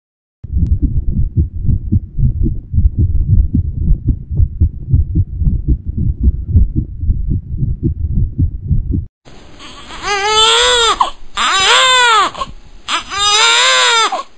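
Fetal heartbeat as heard through an ultrasound Doppler: a rapid low pulsing that lasts about nine seconds and then cuts off. A newborn baby then cries three times, each cry rising and falling in pitch.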